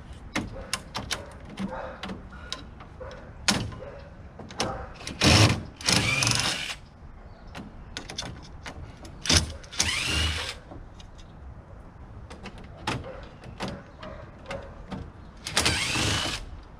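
Power drill with a 5/16 nut driver backing screws out of the sheet-metal face of a closet AC unit: three short runs of about a second each, the motor pitch rising as it spins up, with clicks and knocks of handling between.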